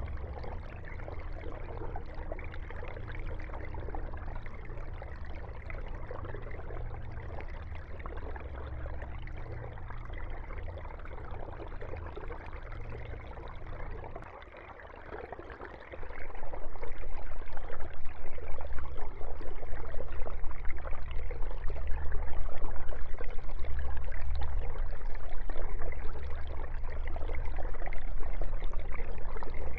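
Aquarium water running and bubbling from the tank's aeration and filtration, over a low steady hum. It dips briefly and then gets much louder about sixteen seconds in.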